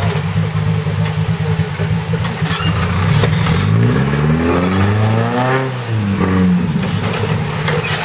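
Rock crawler buggy's engine idling as it crawls up a rock ledge, revving up from about three seconds in to a peak, then dropping back to idle around six seconds.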